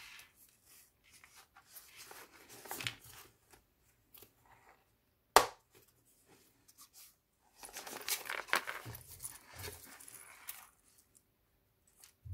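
Paper rustling and crinkling as a thick handmade junk journal of mixed papers is handled and turned over, its pages brushing against each other. A single sharp knock about halfway through is the loudest sound, and a longer run of rustling comes near the end.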